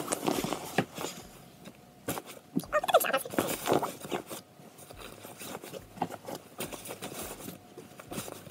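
Clothes and a fabric backpack rustling and bumping as clothes are stuffed into its pocket by hand, with irregular soft knocks close to the microphone.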